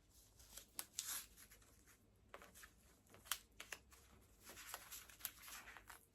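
Faint handling sounds: soft rustling of wrapping and a few small clicks as the Vision Pro's battery pack and cable are unwrapped and handled.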